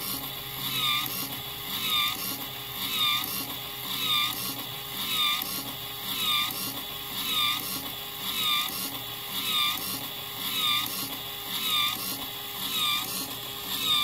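Motor-driven crank-and-connecting-rod test rig cycling a moon clip tool over and over for a life test, about once a second. Each stroke gives a mechanical sound whose tone rises and falls, over a steady low hum.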